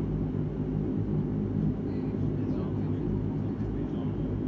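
De Havilland Canada Dash 8-100 turboprop engine and propeller running, heard from inside the cabin as a steady, even drone with a constant pitch.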